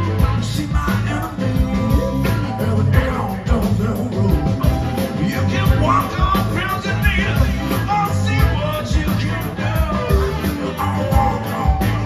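Live rock band playing: drums, bass guitar, electric guitars and keyboards, with a male lead vocal singing over them.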